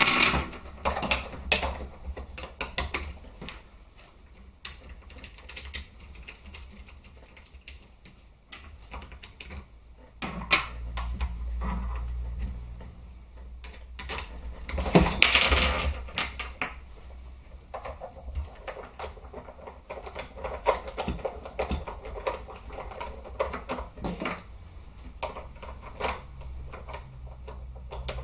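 Scattered clicks and knocks of an SRC G36 airsoft rifle's plastic and metal parts being handled and fitted together, with one louder rushing burst lasting about a second halfway through.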